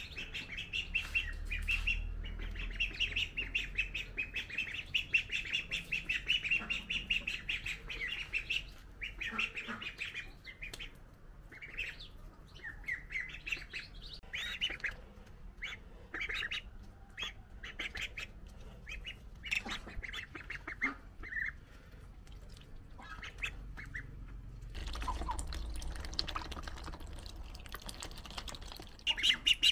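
Young ducks and ducklings peeping: a fast, unbroken run of high chirps for the first nine seconds or so, then scattered single peeps.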